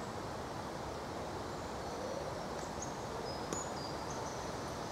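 Steady rushing outdoor background noise with a few short, high bird chirps from about two seconds in and a single sharp click about three and a half seconds in.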